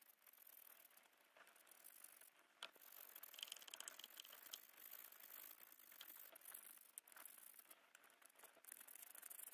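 Faint scrubbing with scattered light clicks and a brief rattle about three seconds in: needle-nose pliers being brushed with a toothbrush in a plastic tub of liquid, the metal tapping against the tub.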